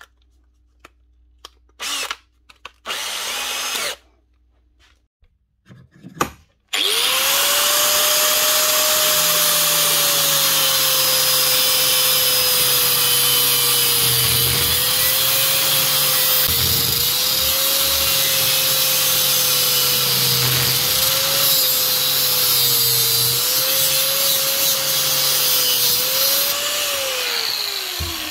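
After a few seconds of short clatters, an angle grinder starts up and cuts into the seized chuck of a Makita cordless drill, metal on metal. Its motor pitch dips each time the disc bites. Near the end it is switched off and winds down.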